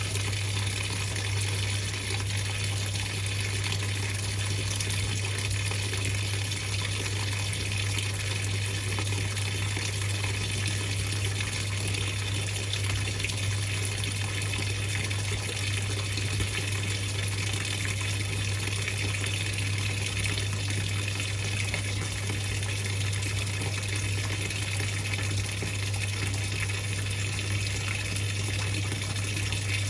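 Whirlpool 3RLSQ8033SWD top-loading washing machine mid-cycle: a steady rush of water over a constant low motor hum, with no change throughout.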